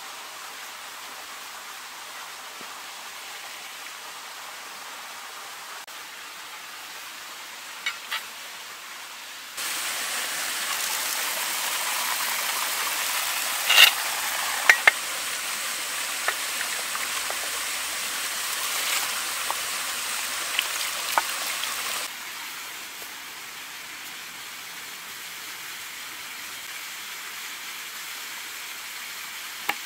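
Water from an outdoor garden tap running onto peeled potatoes on a plate. It starts suddenly about a third of the way in and stops suddenly about two-thirds through, with a few sharp clinks of knife and potatoes against the plate. Before and after it there is only a fainter steady hiss, with two small clicks shortly before the water starts.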